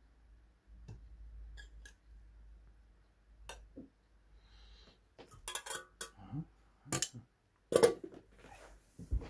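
Cutlery clinking and clattering against plates and dishes as food is served out: a scatter of sharp knocks, busiest in the second half, with the loudest clatter about eight seconds in.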